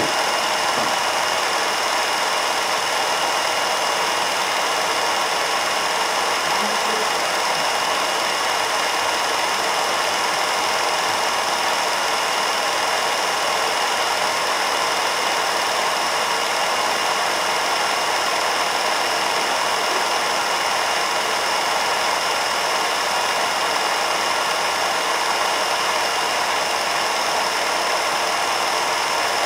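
Film projector running: a steady mechanical whir with a thin high whine over it.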